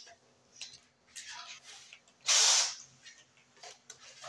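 A single loud, half-second scraping stroke of a hand tool on a wooden panel door about two seconds in, with a few faint knocks and a low hum around it.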